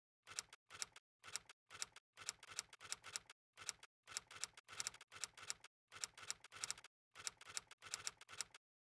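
Typing sound effect: short clusters of sharp keystroke clicks, about two clusters a second, with dead silence between them, matched to text appearing one letter at a time.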